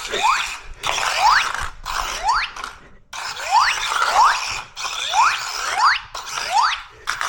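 Small motion-sensor RC toy car's electric drive motors and gears whirring in repeated short bursts, each rising in pitch as the wheels spin up. The car is going haywire in its escape mode.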